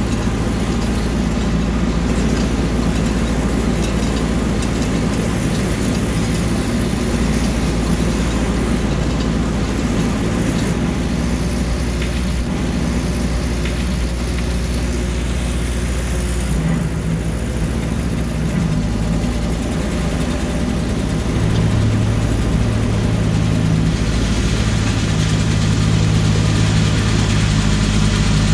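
1955 Ferguson TO35 tractor's four-cylinder engine running steadily while it drives a rear snowblower through wet snow. Its pitch shifts a little past halfway, and it runs louder over the last quarter.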